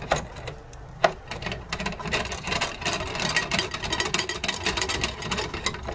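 Steel nuts and washers being spun by hand along a threaded rod, a fast irregular run of small metal clicks and rattles, with one sharper click about a second in.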